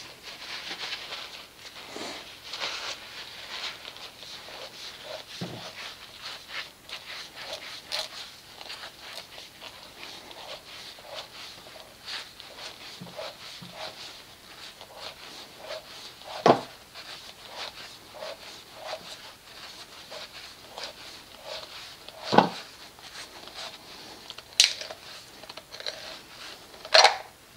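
Small metal clicks and scraping as a Longacre oil filter cutter is clamped on and turned around the steel can of a used Honda oil filter, cutting its top off. Four sharp metallic knocks come in the second half.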